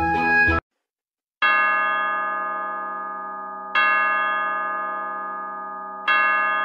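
A clock bell tolling three times, each stroke ringing and slowly fading, about two and a half seconds apart: the clock striking midnight. A short stretch of music ends just before the strokes, with a brief silence after it.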